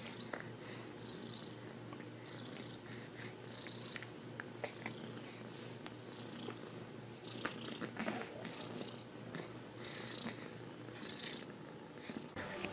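Domestic cat purring steadily, with scattered small clicks and soft noises over it, the strongest a little past the middle.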